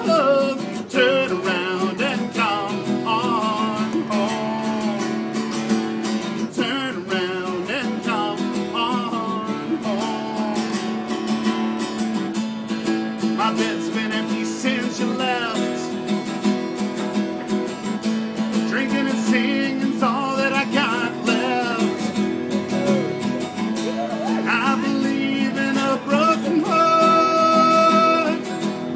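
A man singing to his own acoustic guitar, the guitar played steadily under sung phrases that come and go every few seconds. Near the end he holds one long note.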